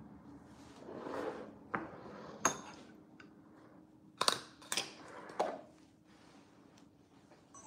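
Kitchenware being handled on a wooden cutting board: about five sharp clicks and knocks from a metal spoon, a ceramic bowl and a plastic deli container, with a short rustle about a second in.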